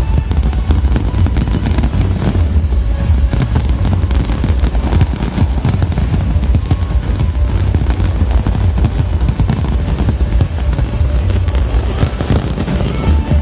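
Fireworks bursting in a rapid, continuous barrage of bangs and crackles, with music playing underneath.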